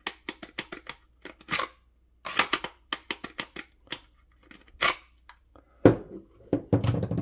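A CZ 75B pistol and a Safariland 578 GLS Pro-Fit holster being handled: a quick series of hard plastic-and-metal clicks and scrapes as the grip lock is worked and the pistol is drawn out, with a louder knock near six seconds.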